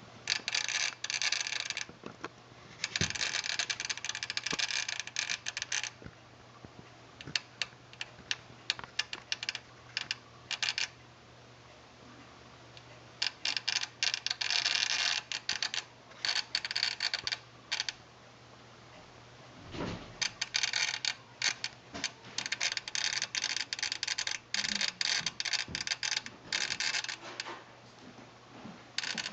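Sony STR-DA555ES AV receiver making a faulty rapid clicking, a chattering that comes in irregular bursts of a second or two with single clicks between them.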